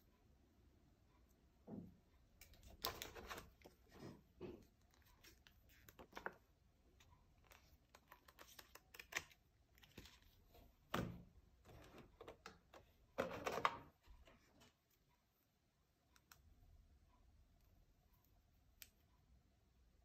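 Handling noises of a tablet and its packaging: scattered light taps, clicks and short rustles, the loudest a brief rustle about thirteen seconds in, stopping a little after fourteen seconds.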